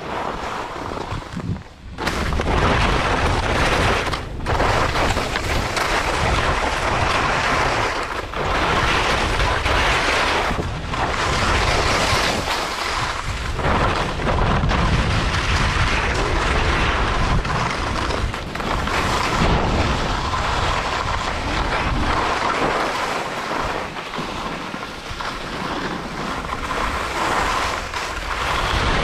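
Wind rushing over the camera microphone during a fast descent on snow, mixed with the scrape of the rider sliding over the snow surface. It swells loudly about two seconds in and dips briefly several times.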